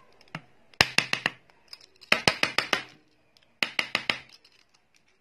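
A kitchen utensil knocked against a hard surface in three bursts of quick, sharp taps, five or six taps to a burst.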